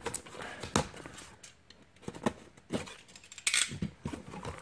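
A box cutter slitting packing tape along the seam of a cardboard shipping box, with scattered clicks and knocks from the knife and cardboard. There is a short scraping rustle about three and a half seconds in as a flap is pulled open.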